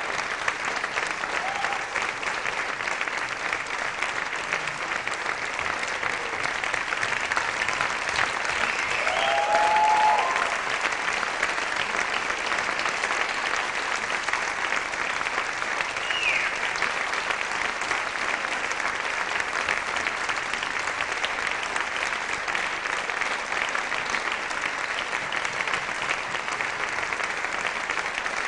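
Theatre audience applauding steadily, a dense clapping that swells briefly about ten seconds in.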